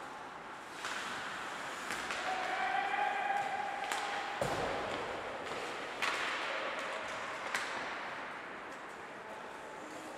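Ice hockey game sound in a rink: skate blades scraping the ice, with several sharp clacks of sticks and puck and a heavier thud, like a hit against the boards, about four and a half seconds in.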